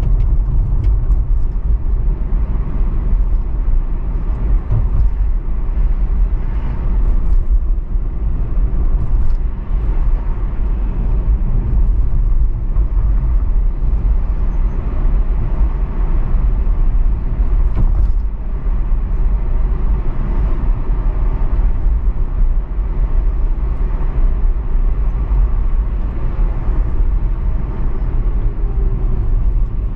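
Car driving on city streets: a steady low rumble of road and engine noise, with a few faint brief clicks.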